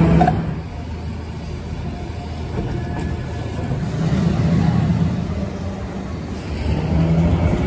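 Keifuku Randen tram running past on street track, loudest at the very start and then fading. Road traffic follows, cars and vans passing with engine hum that swells again about four seconds in and near the end.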